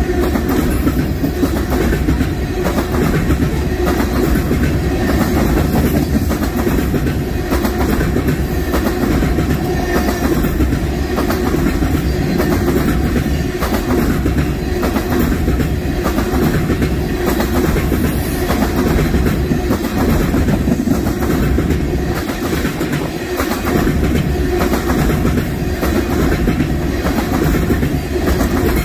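Norfolk Southern freight train cars rolling past, the steel wheels rumbling steadily and clicking over the rail joints in an even rhythm.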